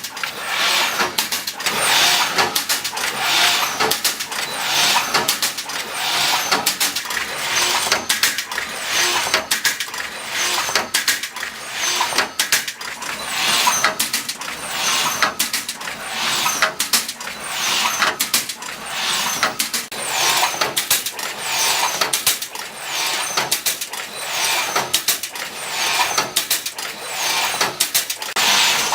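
MW-2 multi-contact welding machine running through its mesh-welding cycle: a rushing, hissing swell about every second and a half, with sharp clicks and knocks all through it.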